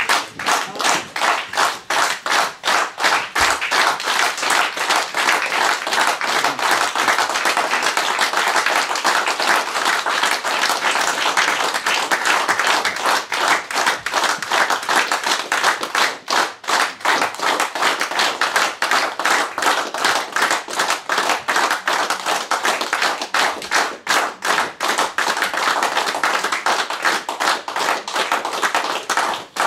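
A small audience clapping steadily, dense sharp hand claps without a break, which stop near the end.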